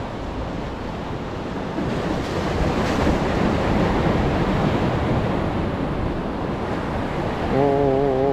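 Sea surf surging and washing against the concrete tetrapods of a breakwater, with wind buffeting the microphone; the wash grows louder about two seconds in. Near the end a short wavering, hum-like tone sounds for about a second.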